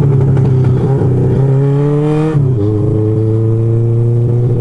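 Motorcycle engine pulling under acceleration, its pitch climbing steadily. About two and a half seconds in, the pitch drops sharply as the rider shifts up a gear, then starts climbing again.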